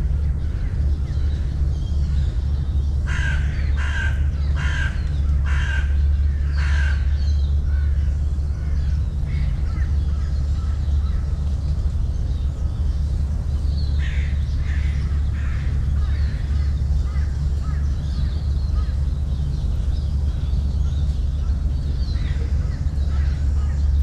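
A crow cawing: a run of five evenly spaced caws about three to seven seconds in, and a fainter run of calls a few seconds later, over a steady low rumble.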